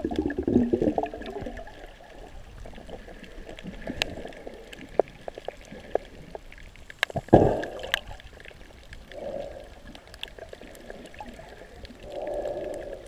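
Underwater water movement heard muffled through a submerged action camera's housing: sloshing and gurgling, with scattered sharp clicks and a louder whoosh about seven seconds in.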